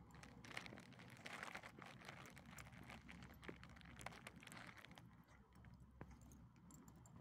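Two small dogs eating food scraps off a concrete curb: faint chewing, licking and smacking with small irregular clicks, busiest in the first five seconds.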